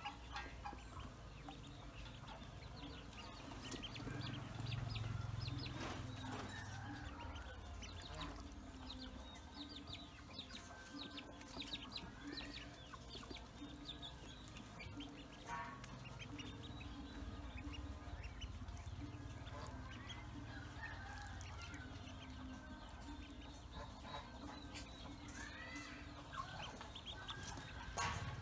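A brood of Pekin and black ducklings peeping constantly in many short, high chirps as they swim in a basin of water.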